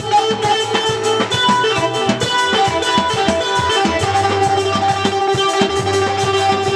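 Dance band music: plucked guitar lines over a bass line and a steady drum beat.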